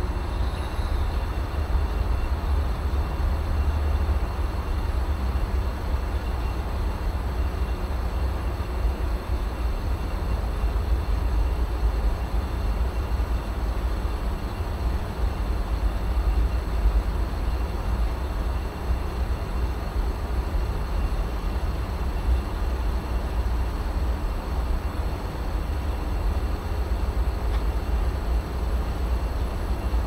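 Outdoor unit of a Vaillant aroTHERM plus 7 kW air-source heat pump running, heard up close as a steady, unbroken low hum with a few faint steady tones above it.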